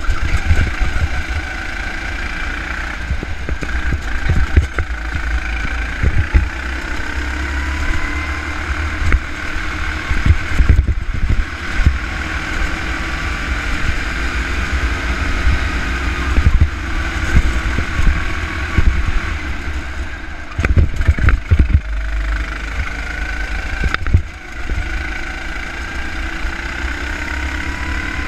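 Go-kart engine driven hard around a lap, its pitch rising on the straights and dropping into the corners. A heavy low rumble of wind on the onboard microphone and repeated short knocks run under it.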